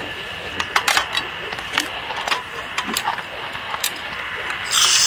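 Light clicks and knocks of metal and dishes handled on a wooden table, as the metal arms and legs of a folding portable gas stove are swung out. A brief hiss near the end.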